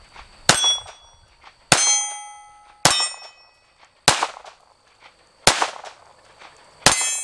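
Six shots in slow fire from a Taurus Spectrum .380 ACP pocket pistol, about one every second and a bit. Most shots are followed by the brief ring of a steel target being hit.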